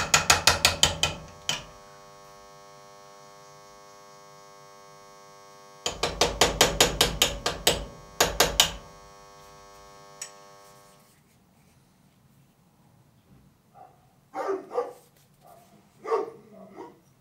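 Rapid hand-hammer taps on a small chisel cutting into a steel hammer head held in a vise, about six taps a second, in two bursts with a steady held tone between them. A dog barks a few times near the end.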